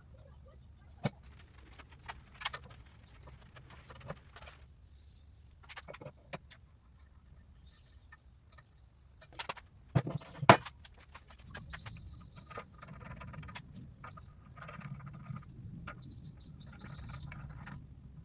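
Scattered clicks and knocks of hard objects being handled, with the loudest, a pair of knocks, about ten seconds in, followed by an irregular rustling and scraping stretch.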